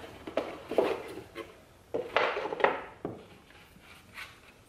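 Handling noise: a metal ruler and a cardboard box knocking and scraping against a cutting mat, a string of clacks with the loudest cluster about two seconds in.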